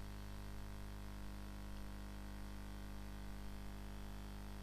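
Steady electrical mains hum with a low hiss, unchanging throughout.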